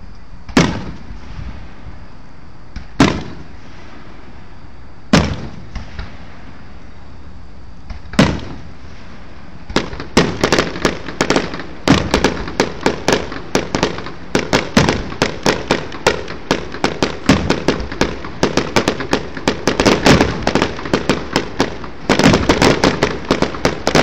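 Aerial fireworks shells bursting: four single booms a few seconds apart, then from about ten seconds in a rapid barrage of many bangs close together.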